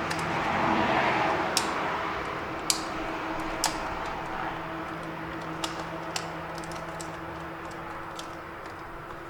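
Sharp plastic clicks and taps as the electrical connectors on an Audi TT instrument cluster are handled and plugged in, three loud ones early and fainter ones later, after some rustling of the wiring, over a steady low hum.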